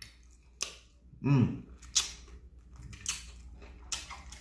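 Close-miked mouth sounds of a man eating fried chicken: several sharp, wet lip smacks and clicks while he chews. One short hummed "mm" comes about a second in.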